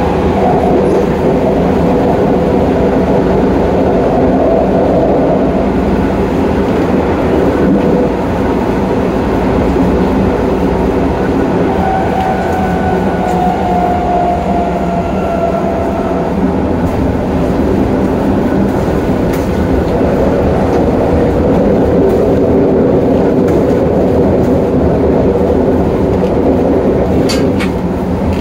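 Tokyo Metro 08000-series subway car running along the line, heard at the gangway between cars: a steady, loud rumble of wheels and running gear. A faint whine slides slightly down for a few seconds about halfway, and a few sharp clicks come near the end.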